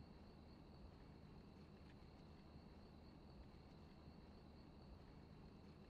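Near silence: faint room tone with a thin, steady high-pitched tone.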